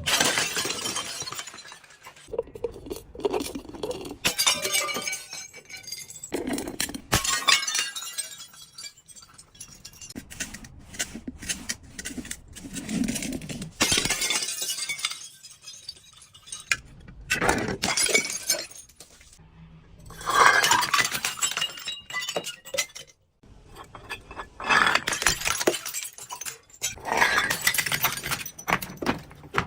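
Glass being broken and crushed: repeated bursts of crunching, cracking and clinking shards, coming in separate episodes with short pauses between, the loudest crash at the very start and another about 20 seconds in.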